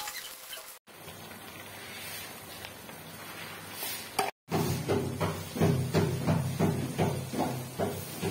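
Mutton brains frying in oil in an aluminium pot, with a soft sizzle. In the second half a wooden spatula stirs and scrapes the pot in quick repeated strokes, about three a second.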